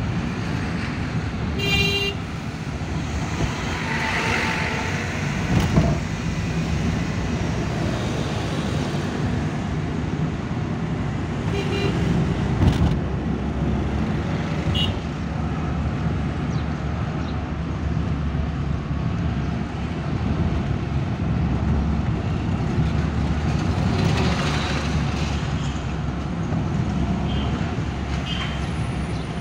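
Steady engine and road rumble inside a Suzuki Mehran's cabin while it drives along, from its small three-cylinder engine. A horn toots briefly about two seconds in, there are fainter short honks later, and two thumps come midway.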